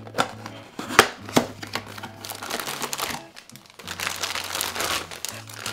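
Packaging crinkling and rustling as the new replacement outer cover for a lens is unwrapped. There are a few sharp clicks in the first second and a short lull about halfway through.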